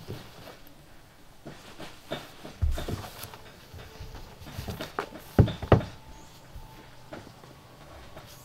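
Books and papers being handled and set down on a wooden floor and shelf: irregular knocks and thumps, with two sharp thumps close together a little past halfway.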